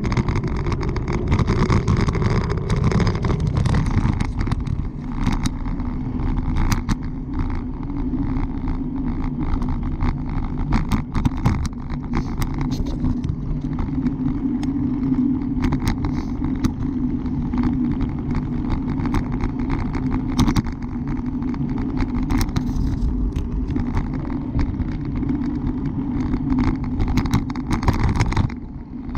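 Bicycle riding at speed: a steady rumble of road and wind noise with a low hum and frequent small clicks and rattles. It drops briefly near the end.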